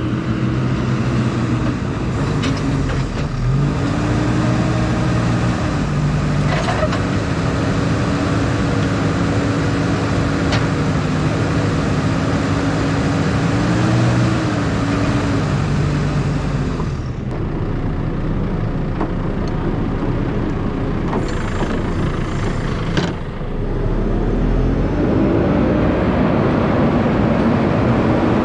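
A heavy machine's engine running steadily and loudly, its pitch stepping and gliding up and down as the revs change. The sound thins out about two-thirds of the way through, and there is a sharp knock shortly after.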